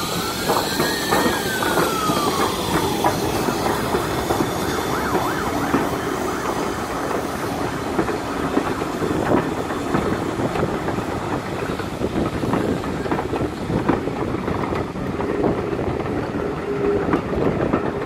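Steam locomotive and its coaches rolling slowly past on the rails, wheels knocking over rail joints. A high squeal rises and then falls over the first three seconds, with steam hissing briefly at the start.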